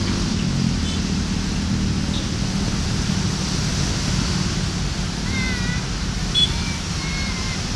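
Diesel locomotive's engine making a steady low rumble as it approaches, with a few short high chirps in the second half.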